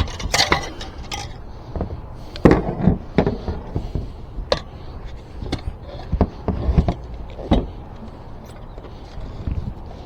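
An e-bike tire being worked onto its wheel rim by hand: irregular knocks, clicks and scraping as the tire and tools are forced against the rim.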